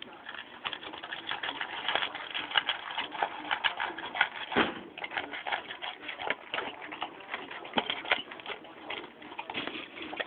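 A pet crunching dry kibble: rapid, irregular crunches, several a second.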